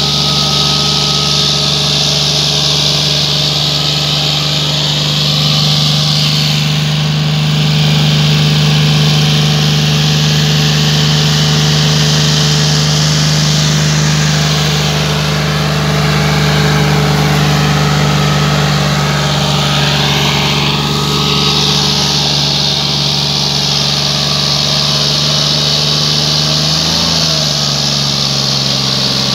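John Deere 5039D's three-cylinder diesel engine running hard and steady under heavy load as the tractor drags an implement through dry soil, with a steady hiss of churned dirt from the rear tyres. Near the end the engine note drops as the revs sag under the load.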